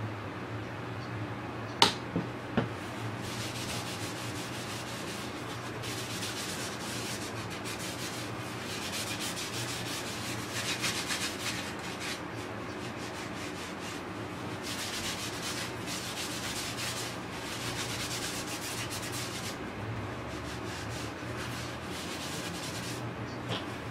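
A maroon abrasive scouring pad is rubbed back and forth over the painted surface of a hockey-style mask, making scratchy scrubbing strokes that come in spells. A few sharp clicks sound about two seconds in, the loudest moment. A low hum runs underneath.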